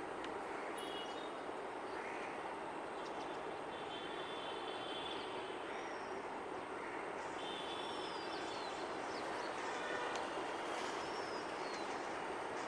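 Steady background rumble with several short, high bird chirps and downward-sliding calls over it; the rumble grows a little louder near the end.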